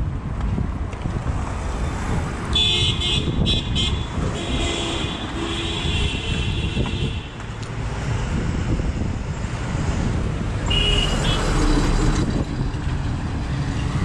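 Street traffic with engines running and several vehicle horns honking. There are a few stuttering beeps about three seconds in, a longer honk from about four to seven seconds, and another short one near eleven seconds.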